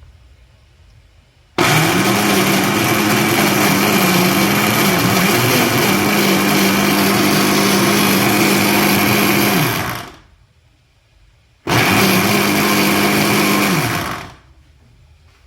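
A small, high-speed electric motor appliance with a rushing noise is switched on for about eight seconds. It is switched off and then run again for about three seconds. Each time its motor tone quickly spins up and winds down.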